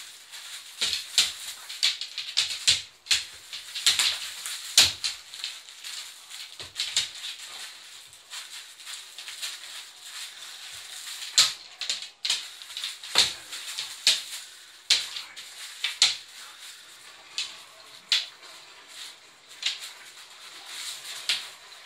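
A Doberman chewing and tearing at a toy: irregular crackling and clicking, thickest in the first few seconds and again in the middle, thinning toward the end.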